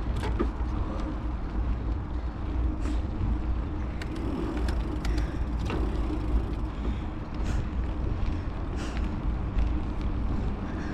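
Riding noise from a bicycle on an asphalt trail: a steady low rumble of wind on the microphone and tyres rolling on pavement. Scattered short clicks and knocks from the bike run through it.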